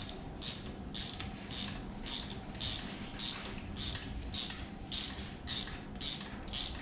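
Hand ratchet backing out a loose exhaust manifold bolt on a 302 V8, its pawl clicking in short strokes about twice a second as the handle is swung back and forth.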